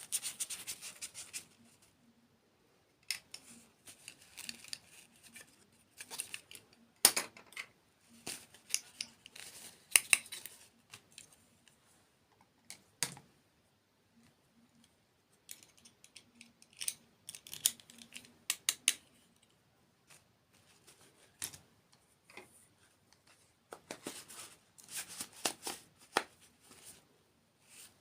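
Crisp crunching from crunchy dessert being bitten and chewed close to the microphone: rapid sharp crackles in bursts of a second or two, with short pauses between.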